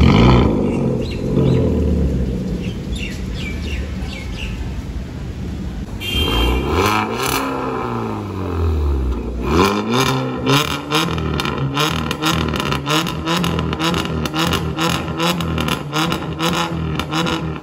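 Hyundai i20's engine revved through a newly fitted aftermarket valvetronic exhaust. A flare at the start settles, then comes a long rev that rises and falls, then a string of quick throttle blips with sharp crackling pops.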